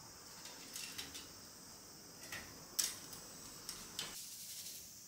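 Scattered light clicks and taps of small objects being handled, with one sharper knock nearly three seconds in.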